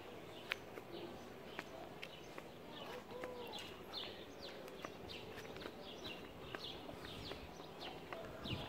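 Small birds chirping over and over, with footsteps on pavement.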